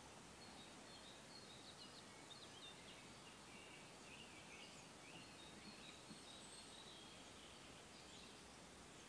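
Faint songbirds singing, short quick chirping phrases, over a steady background hiss.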